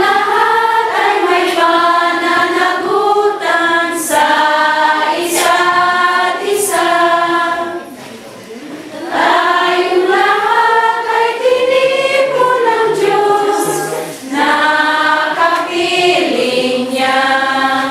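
Church congregation singing a hymn together, in long sung phrases with short breaks between them, about eight seconds in and again about fourteen seconds in.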